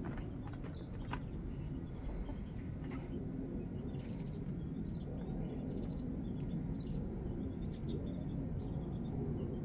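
Small birds chirping and twittering in quick short notes over a steady low outdoor rumble, with a few sharp clicks in the first seconds.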